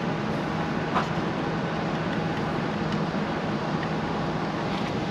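Gas furnace draft inducer motor running with a steady hum, with a few faint clicks. The board still reads a pressure switch open fault even though the draft pressure is good, which the technician takes for a bad control board.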